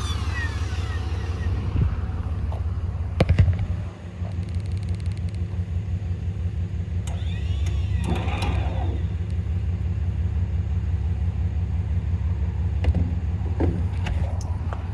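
Cummins 6.7 L turbo-diesel engine idling with a steady low rumble. A short clatter of knocks sounds about three seconds in.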